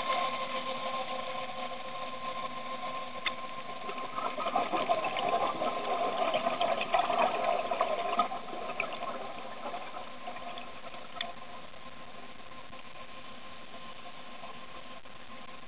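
Underwater recording of a steady small electric motor whine, with gurgling air bubbles louder from about four to eight seconds in.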